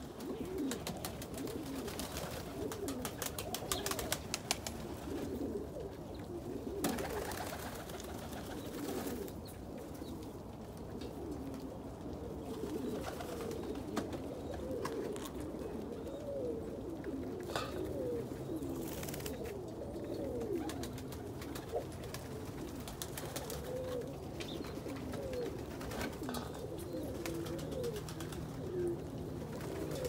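Domestic fancy pigeons cooing continuously, several birds overlapping in low, rolling, warbling calls, with a few short clicks in between.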